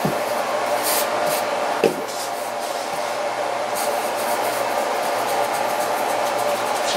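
Steady whirring hum of a fan running, with one soft thump about two seconds in as the dough ball is turned out onto the counter. There are a few faint rustles of hands on floured dough.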